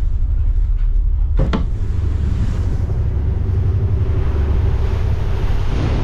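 Wind buffeting the microphone and choppy sea rushing past a tugboat on its open deck in rough weather, over a steady low rumble. A sharp clunk comes about one and a half seconds in, as the wheelhouse door is opened, and the wind and water noise then grows fuller.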